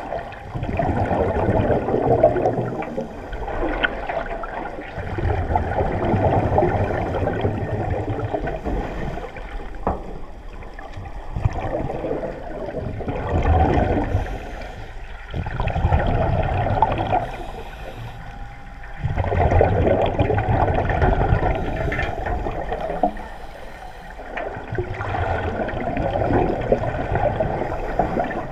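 Water gurgling and sloshing, swelling and fading in waves every few seconds.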